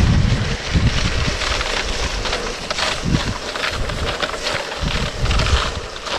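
Wind buffeting the microphone at speed, over a steady hiss of skis gliding on packed snow.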